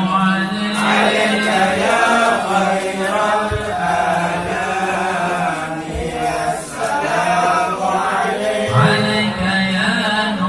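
Men's voices chanting a hadrah devotional song (sholawat) in a slow, melismatic melody, a lead singer amplified through a microphone over a held low tone, with no drumming.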